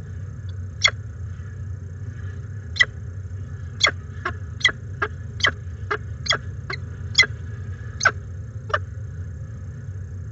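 Peregrine falcon chick begging while being fed at the nest: about a dozen short, sharp chips, irregularly spaced and coming fastest in the middle, over a steady low hum.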